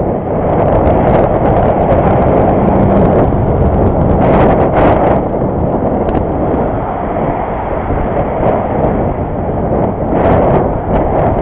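Steady rushing of wind and road noise on the microphone of a camera riding along on a moving bicycle, with a few brief knocks about four to five seconds in and again near the end.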